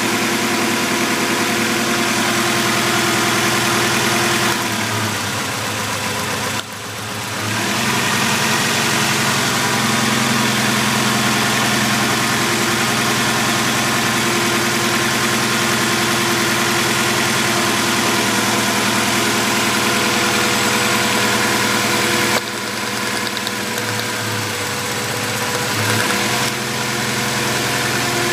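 Acura Integra's B18B1 1.8-litre four-cylinder engine idling with a misfire. The idle changes twice, for a couple of seconds about four seconds in and again for a few seconds some twenty-two seconds in.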